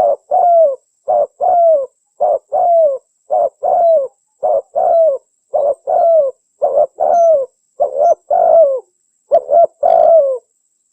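Spotted dove (tekukur) cooing: a short note followed by a longer falling coo, repeated about once a second, nine times, stopping shortly before the end. It is the call of a female, used as a lure to draw males.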